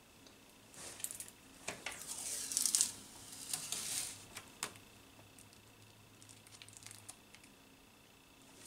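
Protective plastic film being peeled off a PC case's front panel, crinkling and crackling in a run of bursts for the first few seconds, then only faint rustles, with another sharp crackle at the very end.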